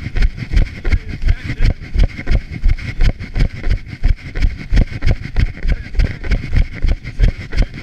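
A trail runner's footfalls on a leaf-strewn forest dirt path: dull, low thuds about three times a second at running pace, over a steady hiss.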